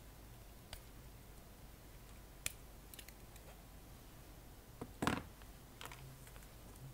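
Small clicks and taps of wire and hand tools being handled during amplifier wiring, with one louder short clatter about five seconds in and a smaller one just after.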